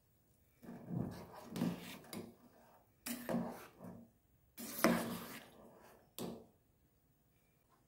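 Steel ladle scraping and stirring thick vermicelli payasam in a steel pan, in about half a dozen separate strokes with short pauses between them.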